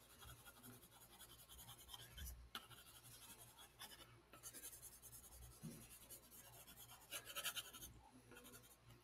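Faint scratching of a pencil shading on paper, in spells of quick repeated strokes, the strongest about four and seven seconds in.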